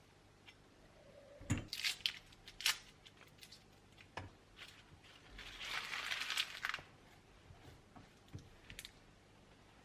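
Small kitchen handling noises: a few sharp clicks and knocks, and a stretch of crinkling, as of plastic packaging being handled, about five to seven seconds in.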